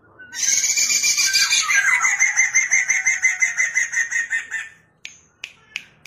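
Poksay mandarin laughingthrush singing a loud, fast run of the same note repeated about seven times a second, with a few lower sliding whistles mixed in; it breaks off after about five seconds and a few sharp clicks follow.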